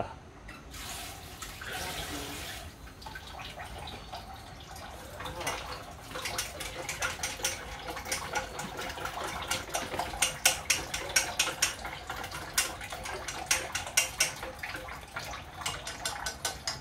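Water running from a kitchen tap into the sink. From about five seconds in, irregular splashing and light clatter join it, as things are washed or handled under the water.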